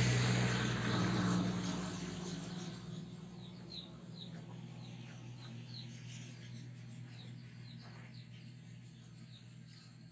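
A low motor hum fades away over the first two seconds or so. Then crickets chirp, short high chirps about twice a second.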